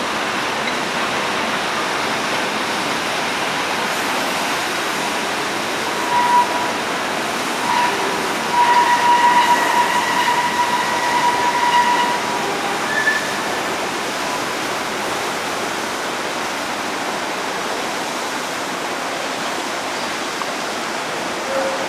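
Historic tram, motor car Be 4/4 67 with trailer Bi 363, rolling slowly through a very tight curve, its steel wheels squealing in high, thin, sustained tones for several seconds from about six seconds in, over a steady hiss of street noise.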